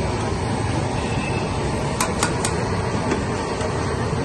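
Steady street traffic noise, with three quick metallic clinks about two seconds in as a steel ladle knocks against the tea bucket and pot.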